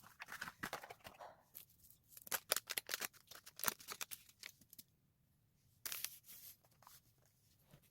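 Rustling and crinkling of something being handled, with many sharp clicks, busy for the first half. It goes quieter, with one more short burst about six seconds in.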